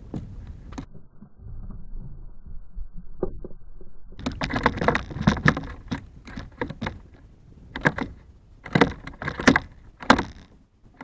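Sharp clicks, knocks and rattles from a freshly landed bass and fishing tackle being handled on a plastic kayak. They come in clusters from about four seconds in, after a few muffled seconds with a low rumble.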